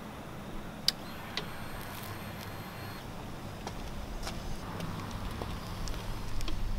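Harley-Davidson Sportster Forty-Eight's 1200cc V-twin engine running at low speed, with a sharp click about a second in; it grows louder near the end as the bike moves off.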